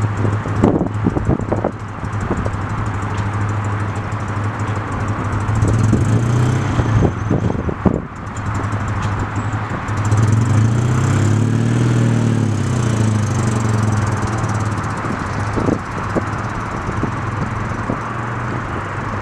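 Citroën 2CV's air-cooled flat-twin engine running, its pitch rising and then falling again about ten to fourteen seconds in. A few sharp thumps in the first couple of seconds and again around seven to eight seconds in.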